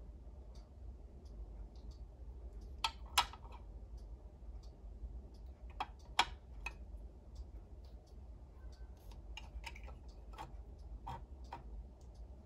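Small plastic toy pieces clicking and tapping as they are picked up and set down, light scattered clicks with a couple of sharper pairs about three and six seconds in, over a low hum.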